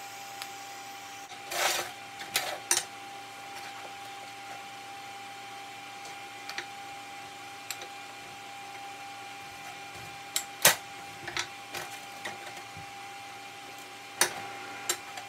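Scattered clicks and clanks of steel pieces being handled and set down on a steel welding table: a short cluster about two seconds in and another, with the loudest knock, around ten to eleven seconds in. A faint steady high hum runs underneath.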